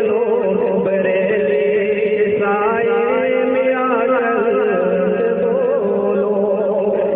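A naat, an Urdu devotional poem, sung in long, wavering held notes.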